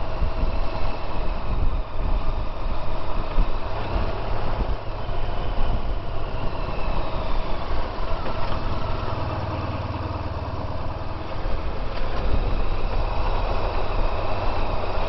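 Honda VFR1200X Crosstourer's V4 engine running as the motorcycle rides along a winding road, heard from the rider's position as a steady low rumble.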